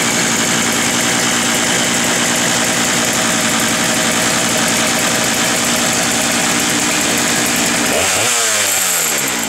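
Sachs-Dolmar 166 chainsaw's 118 cc two-stroke engine running steadily, then shut off about eight seconds in, its note falling away as the engine spins down.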